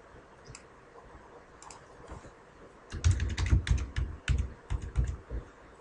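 Typing on a computer keyboard: a few faint clicks, then a quick run of keystrokes starting about three seconds in, each with a dull low thump.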